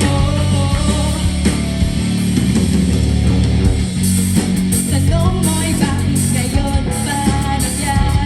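Live rock band playing: electric guitar carrying held notes over bass and drums, with cymbal hits coming in regularly from about halfway.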